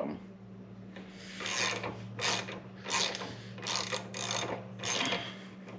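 Socket ratchet wrench clicking in about six short spells, starting about a second and a half in, as a coarse-thread M10 bolt is run in and out of its threads. The bolt has been lubricated so that it will go in freely; by the end it is going in like butter.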